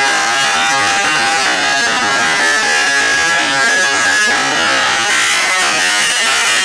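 Motorcycle engine buzzing at high revs while cornering at speed, its note rising gently as the bike accelerates, over a steady rush of wind noise, heard through a bike-mounted action camera.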